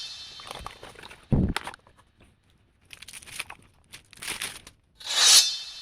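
Crinkling and rustling of packaging being handled, with a low thump about a second in. About five seconds in, a loud shimmering whoosh swells up and then fades out.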